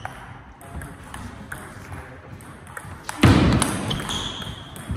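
Table tennis rally: the ball clicking sharply off bats and table in a string of hits, with a loud burst of sound about three seconds in.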